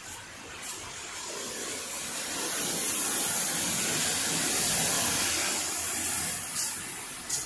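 Car tyres hissing on a wet road as a car passes: a steady hiss that swells over a few seconds and fades away again.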